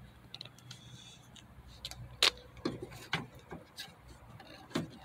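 Scattered clicks and taps from hands working the bottom end fitting of a trunk gas lift strut at its ball stud: a sharper click about two seconds in, then several lighter ones.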